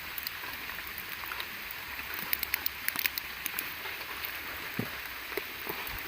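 Rain falling steadily, with a cluster of sharp drip-like ticks about two to three and a half seconds in.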